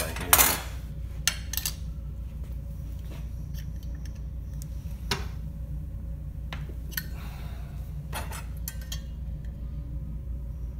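Metal tools and a metal stirrup being handled on a workbench and in a bench vise. There is a loud metallic clatter about half a second in, then scattered clinks and knocks over a steady background hum.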